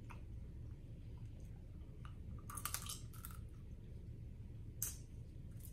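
Snow crab being eaten: the shell crackling as gloved hands break it open and pick it, with a quick run of sharp snaps about halfway through and a single one near the end, along with chewing.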